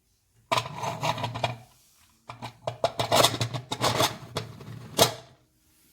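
Handling noise: scraping and rubbing with quick clicks and knocks, in two bursts, ending on a sharper knock.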